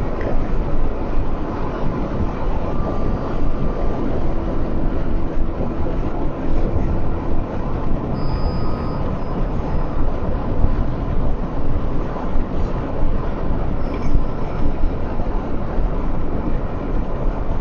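Steady road and engine noise from inside a moving car, an even rumble with no distinct events.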